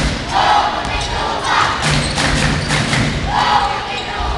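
Basketball game crowd noise: spectators shouting and cheering in three bursts, over repeated thuds.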